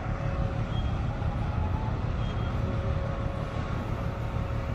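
Low, steady engine rumble from a vessel on the water, with a steady hum above it.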